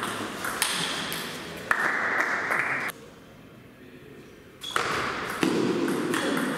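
Table tennis ball ringing off bats and table: a rally starts a little under five seconds in, with sharp pings in quick succession. Before it there is a noisy stretch that cuts off suddenly about three seconds in, then a brief hush.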